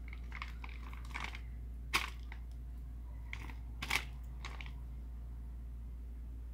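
Plastic sheet crinkling and crackling as a hand presses and shifts fish lying on it: a few scattered crackles, with two sharper ones about two and four seconds in. A steady low hum runs underneath.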